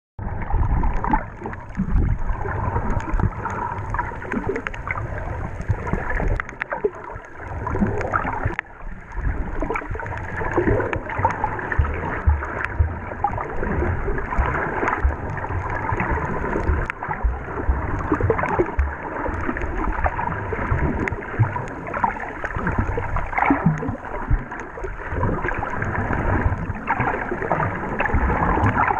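Water sloshing and gurgling heard underwater through a camera on a snorkel swim, with a strong low rumble and many small clicks throughout, and a faint steady high tone.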